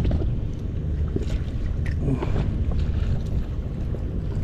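Wind buffeting the microphone in a steady low rumble, with a few light knocks and rustles from handling a caught fish and gear in an inflatable boat.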